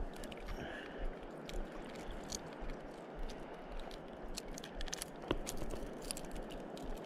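Water washing steadily along a rocky shore, with scattered light clicks and taps and one sharper click about five seconds in.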